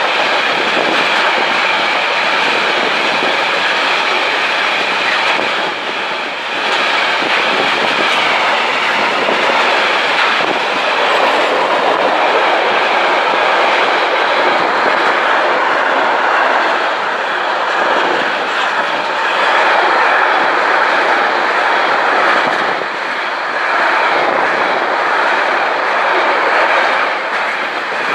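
Freight train of container-laden flat wagons rolling past at close range: a loud, steady noise of steel wheels running on the rails.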